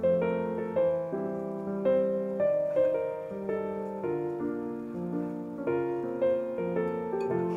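Background piano music, with notes struck at a steady, unhurried pace.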